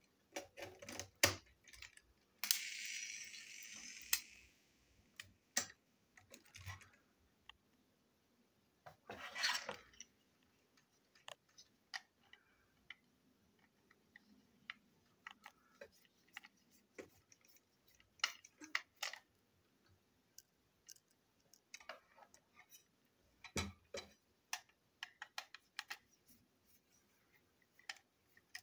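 Small plastic clicks and knocks of a toy train's shell and chassis being handled and unscrewed with a small screwdriver, irregular throughout. A brief scraping hiss comes about 3 s in and another near 9 s.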